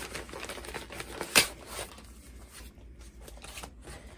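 Clear plastic packaging crinkling and rustling as a cross-stitch kit is pulled out of its bag, with one sharp snap about a second and a half in and lighter rustles after.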